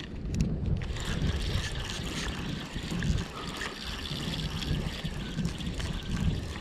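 Strong gusty wind buffeting the microphone, with water lapping at the shore.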